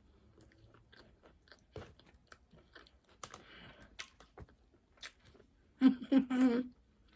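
Close-up eating of a hamburger: chewing with small wet mouth clicks and light crunches. Near the end comes a brief loud voiced sound from the eater in a few quick pulses.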